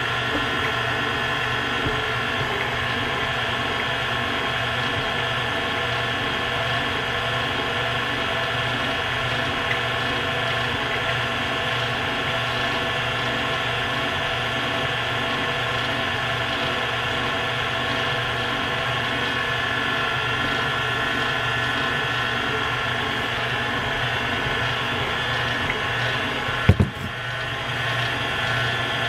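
Electric mixer motor running steadily, beating cookie dough as dry ingredients are worked into the butter mixture. Near the end there is a single knock and a brief dip before the motor runs on.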